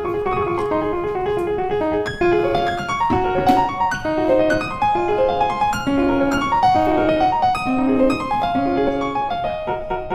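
Background piano music: a busy melody of quick notes that grows fuller about two seconds in.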